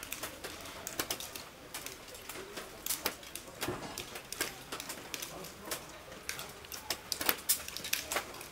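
Irregular sharp clicks and snaps from a round of teer archery, with arrows loosed from bamboo bows and striking around the straw target, sometimes several a second.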